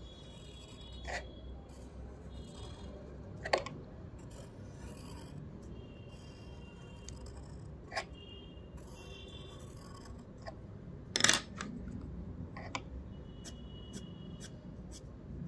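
Graphite pencil scratching on paper while outlines are drawn, with a few sharp knocks. The loudest knock comes about eleven seconds in.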